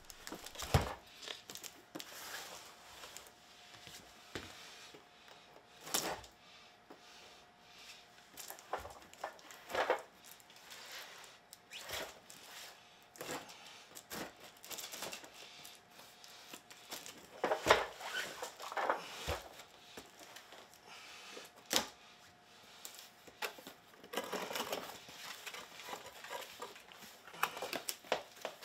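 A short blade slitting packing tape and cardboard on a shipping box, with scattered sharp clicks and knocks and scraping, rustling stretches as the flaps are cut and pulled open.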